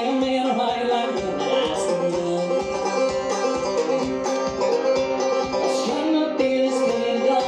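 Banjo played live in a fast bluegrass-style picking pattern, with a steady, even run of picked notes.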